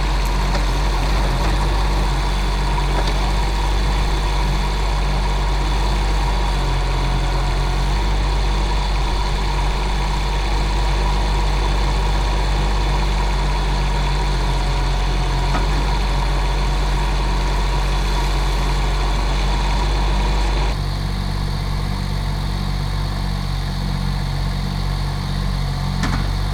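Digger engine running steadily at a constant speed; about 21 seconds in the sound changes and drops slightly in level.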